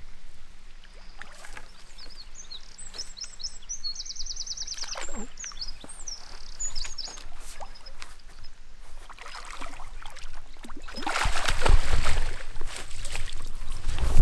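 Hooked fish splashing at the surface as it is drawn in on a fishing pole toward a landing net, loudest about eleven seconds in, with a sharp knock at the end. A small bird sings high trilled phrases in the background in the first half.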